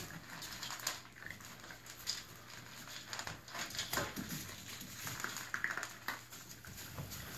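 Litter of Brittany puppies eating from a metal pan: irregular small clicks and chewing sounds, with wood shavings rustling and pattering under their paws.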